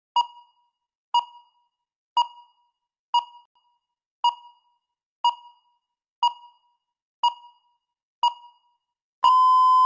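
Countdown timer beeping: nine short electronic beeps, one a second, then one long beep of the same pitch near the end, which signals that the preparation time has run out.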